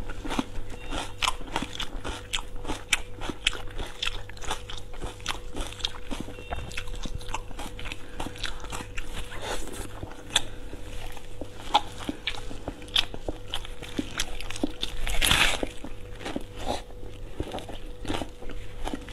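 Close-miked eating: crisp crunching bites and chewing of raw red onion, with sharp mouth clicks throughout and one louder, longer crunch about fifteen seconds in.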